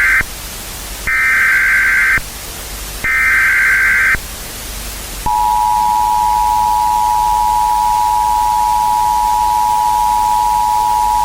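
Emergency Alert System tones opening a mock tornado warning. First come the buzzy SAME header data bursts near 2 kHz, each about a second long: the tail of one, then two more. About five seconds in, the steady two-tone EAS attention signal starts and holds. A constant hiss sits under all of it.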